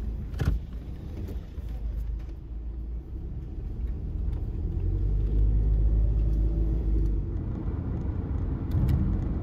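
Car interior road and engine noise while driving: a steady low rumble that grows louder as the car picks up speed about halfway through. A single sharp click comes shortly after the start.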